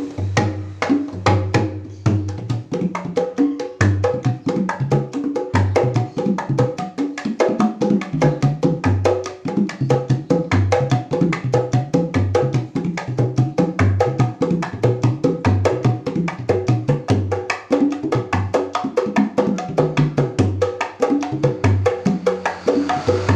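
Black Papua mini Jaipong kendang set, a large Sundanese barrel drum with two small kulanter drums, played by hand in a fast, busy Jaipong rhythm. Deep strokes that shift in pitch are mixed with a dense stream of quick, sharp slaps.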